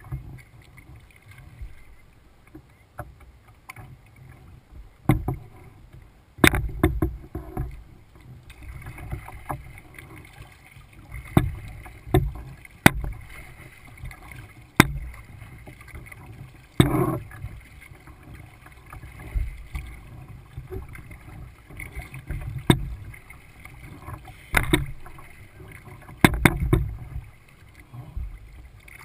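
Kayak being paddled: paddle blades dipping and splashing in an uneven rhythm, about one stroke every couple of seconds, with water sloshing against the hull and a few sharp knocks.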